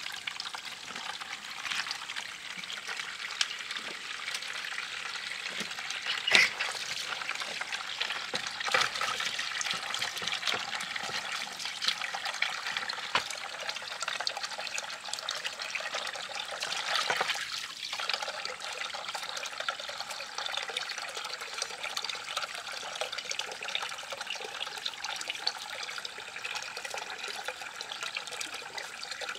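Steady trickle of running water, with occasional splashes as tubers are washed by hand in a basin of water.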